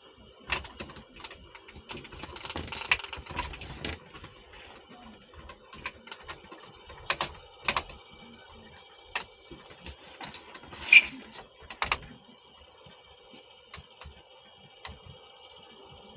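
Handling noise from a person moving about and working with something overhead in a small enclosed space: rustling and a scatter of sharp clicks and knocks, the loudest about eleven seconds in, over a faint steady hum.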